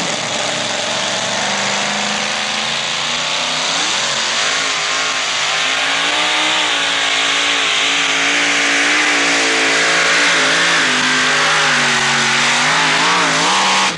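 Two-wheel-drive pulling truck's engine at full throttle, launching off the line and pulling a weight-transfer sled down the track. Its pitch climbs in the first few seconds, then wavers up and down. The sound cuts off abruptly at the end.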